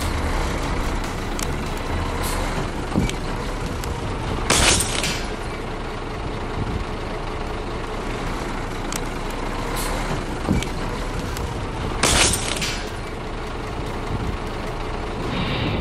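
A 7-ton truck's engine running steadily, with two short loud hisses of its air brakes, about four and a half and twelve seconds in. A few sharp cracks come as the stack of glass sheets breaks under the tyre.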